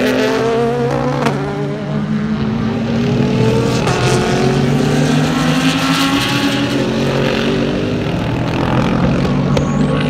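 A pack of GT endurance race cars passing at speed one after another, several engines overlapping at high revs. Each engine note rises and falls as its car goes by.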